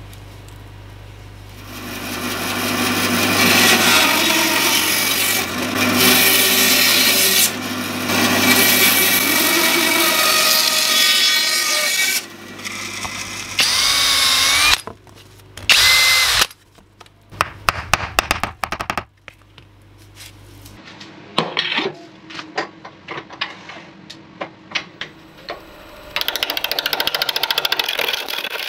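Power tools working a spalted silver birch log. About ten seconds of loud, steady cutting noise come first, then a drill boring into the end grain, then scattered knocks and clicks, and near the end a gouge cutting the wood as it spins on the lathe.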